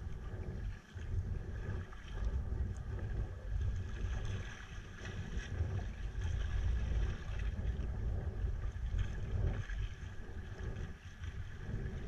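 Wind buffeting a GoPro microphone on a sea kayak in gusts, a heavy uneven rumble over the hiss and splash of choppy water along the hull.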